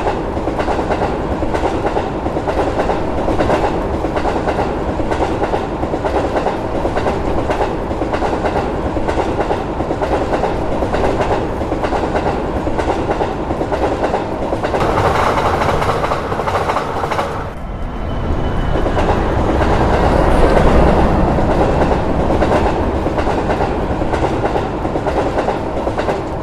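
Train passing at speed, its wheels clattering steadily over the rail joints; the noise dips briefly about two-thirds of the way through, then swells again.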